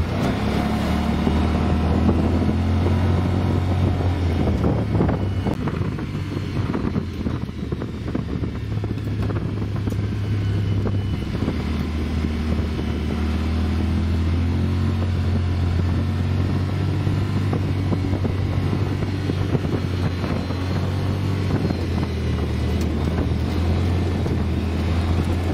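Side-by-side UTV engine running as the machine drives along a rough dirt road. The engine note eases off about five seconds in and builds again from about twelve seconds.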